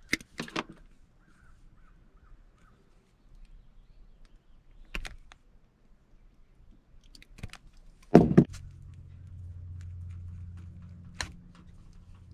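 Hands working with tools and small metal parts: scattered clicks and clinks, with a loud knock about eight seconds in, after which a low steady hum sets in.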